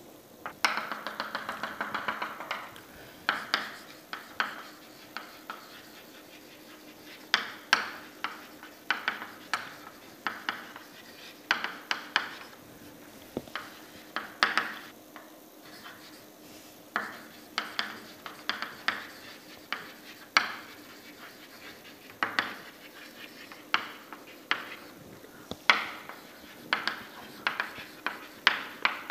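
Chalk writing on a chalkboard: irregular sharp taps as the chalk strikes the board, with short scratchy strokes between them.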